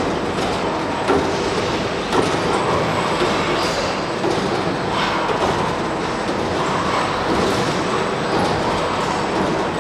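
Spot welding in progress: a continuous mechanical din with occasional sharp knocks and swells every second or two.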